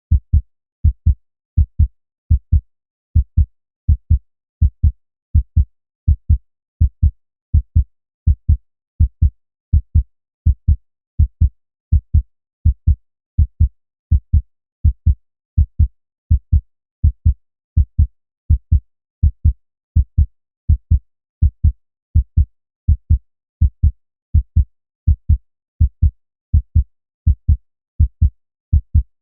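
Human heartbeat: a steady lub-dub rhythm of paired dull, low thumps, just over one beat a second.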